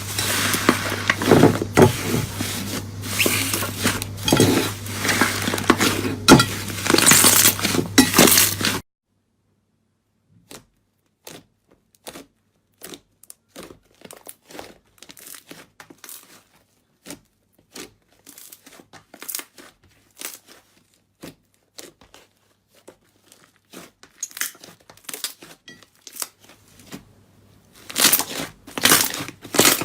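Crunchy slime being handled, with dense crackling and crinkling for about the first nine seconds over a steady low hum. The sound cuts off suddenly, leaving soft scattered clicks and pops. Loud crackling starts again near the end.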